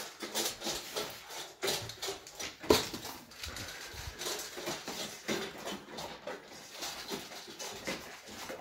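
A dog eating dry kibble from a stainless steel bowl in a raised feeder: irregular crunching and chewing, with kibble and muzzle knocking against the metal bowl, one knock louder than the rest a little under three seconds in.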